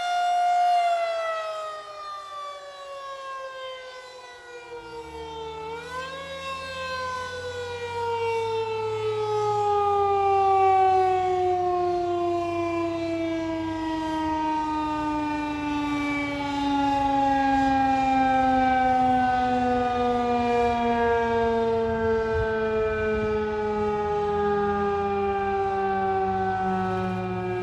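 Federal Signal 2001-SRN "Roundback" rotating outdoor warning siren. It holds a steady tone, then its pitch falls, lifts briefly about six seconds in, and slides slowly and steadily down as the rotor winds down. A low rumble sits beneath it from about five seconds in.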